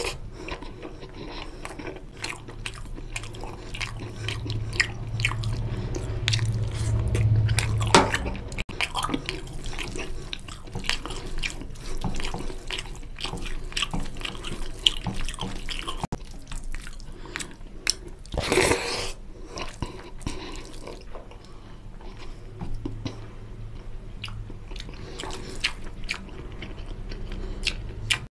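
Close-miked wet eating of mutton curry and rice by hand: steady chewing, lip smacks and the squelch of gravy-soaked rice, made up of many short wet clicks, with one louder burst about two-thirds of the way through.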